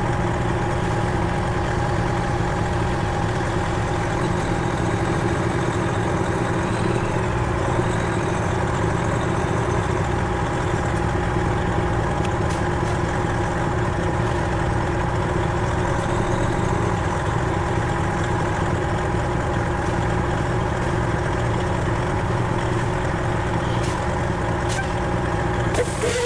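Semi truck's diesel engine idling steadily with an even, unchanging hum.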